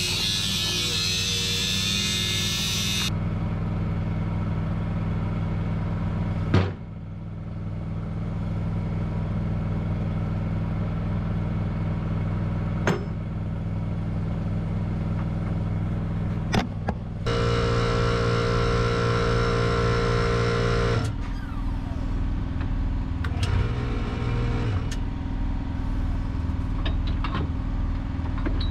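An engine idling steadily under a loud, high-pitched whine that cuts off about three seconds in. A few sharp knocks come later, and the engine note grows louder for a few seconds past the middle.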